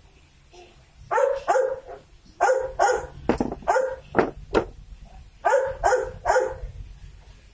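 A dog barking repeatedly in runs of short barks, starting about a second in, with a couple of sharp knocks among them.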